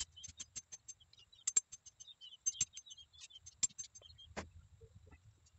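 Irregular, rapid clicks and light knocks of a blade cutting into thin wooden stakes, several a second, with a few louder strokes.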